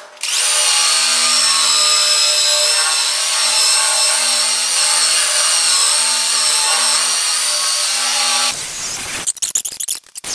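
Cordless impact driver spinning a wire cup brush against a steel tractor grille, scrubbing off surface rust: a steady motor whine with a scratchy hiss. It runs for about eight seconds, then stops, and a few clicks and knocks follow.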